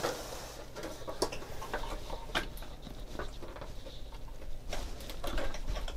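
Scattered light clicks and taps of hands working a connector loose inside the opened Macintosh Plus's metal chassis, over a faint steady low hum.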